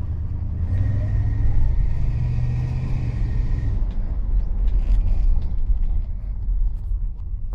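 Ford LTD car running with a low rumble, and a thin high squeal that sets in about a second in and stops about four seconds in: the squeak fault on the car.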